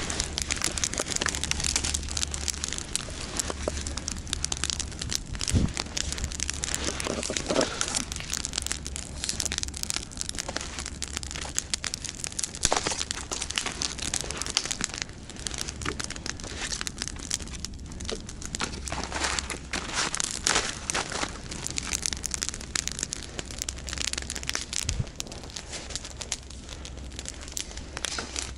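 Campfire of dry deadwood burning, with irregular crackles and pops, over a low steady rumble.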